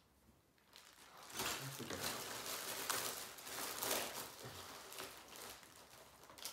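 Clear plastic packaging bag crinkling and rustling as a suction-cup shower caddy is pulled out of it, starting about a second in with several louder crackles.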